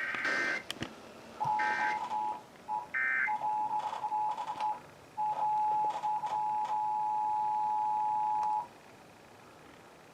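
Emergency Alert System tones: three short data bursts of the SAME header, about a second and a half apart, overlapped by the steady two-tone EAS attention signal. The attention signal drops out briefly a few times, then cuts off suddenly about eight and a half seconds in.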